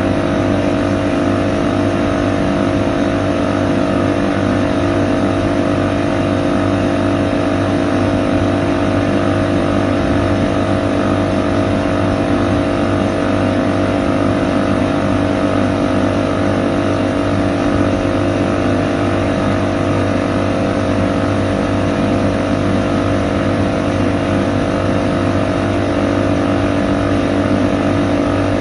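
Air conditioning unit running steadily: an even mechanical hum with a few strong low tones over a whirring noise, unchanging in pitch and level.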